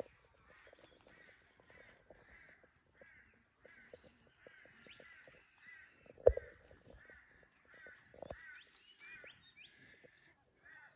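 Short animal calls repeated about twice a second, over faint ticks and rustles. One sharp knock about six seconds in, and a softer one near eight seconds.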